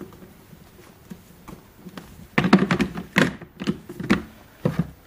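A coiled mains power cable and its plug being handled and set down on a plastic enclosure. It is quiet at first, then a run of knocks and clatter starts about halfway in.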